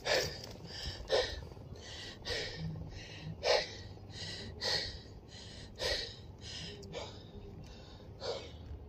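A man panting hard, quick even breaths a little under two a second, out of breath after climbing a steep hill at speed.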